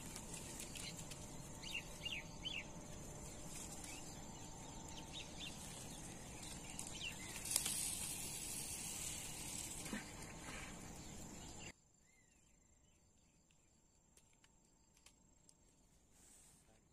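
Birds chirping over a steady high whine. About seven and a half seconds in, a sharp snap and a couple of seconds of hiss as a baited handline is cast and pays out from its hand-held spool. Near twelve seconds the sound drops abruptly to a much quieter background.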